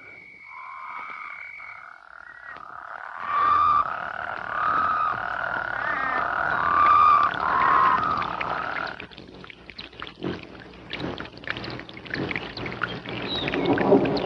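Eerie soundtrack tones: a single high note held for about two seconds, then several wavering, sliding tones that step between pitches. About nine seconds in they give way to scattered clicks and rustles.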